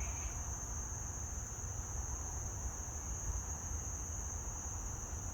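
Crickets chirring steadily in one continuous high-pitched drone, over a low rumble.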